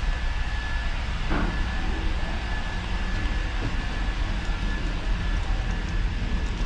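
Steady low rumble and hiss of a moving vehicle, with a faint steady high whine over it.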